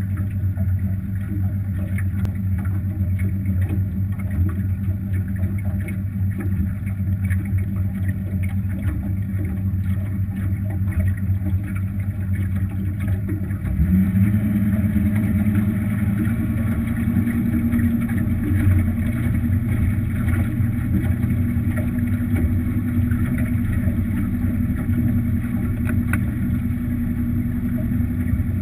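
250 hp Evinrude two-stroke V6 outboard driving an aluminium boat under way. About halfway through, the engine is throttled up: its note rises and gets louder, then holds steady at the higher speed.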